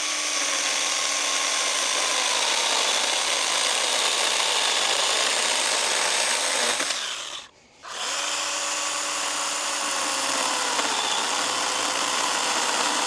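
Stihl GTA 26 battery mini chainsaw running and cutting through a thick branch, its motor whine dipping slightly under load. It stops briefly about seven seconds in, then starts cutting again.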